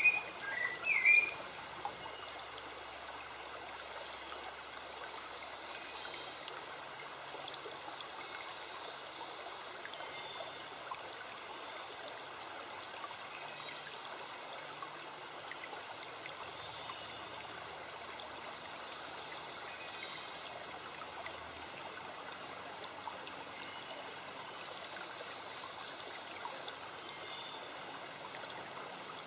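Forest stream flowing and trickling steadily. A bird gives a few quick chirps about a second in.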